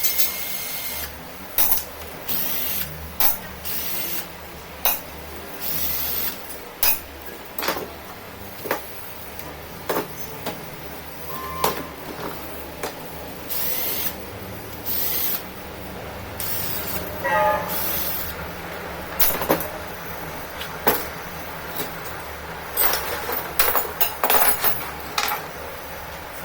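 Hand tools and metal parts being handled on a workbench: a run of separate clicks, knocks and short scraping bursts, coming irregularly.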